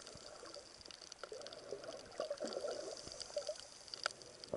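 Underwater sound picked up by a snorkeller's camera in its waterproof housing: faint, muffled movement of water with many scattered small clicks and crackles.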